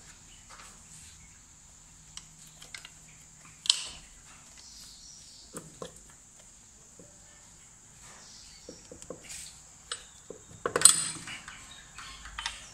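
Metal parts and hand tools clinking and clattering as the right-side engine cover of a Bajaj Discover 135 is worked loose and pulled off. Scattered light clicks, a sharp clatter about four seconds in, and a louder metallic clatter near the end.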